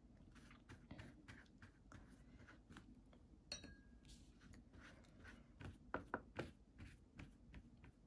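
Near silence with faint scattered clicks and light taps of paintbrushes being handled and worked over watercolor paper, a few louder taps about six seconds in.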